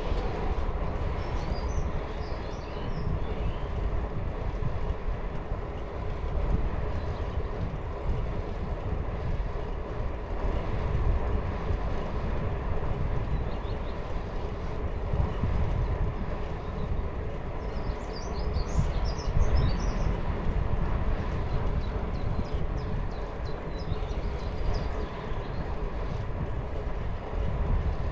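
Steady rolling rumble of a bicycle ride, with tyres on the path and wind on the microphone. Birds chirp briefly a couple of seconds in and again about two-thirds of the way through.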